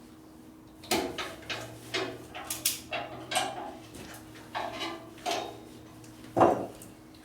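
Metal tools and parts being handled at a workbench: a dozen or so irregular clanks and knocks, the loudest a little before the end, over a faint steady hum.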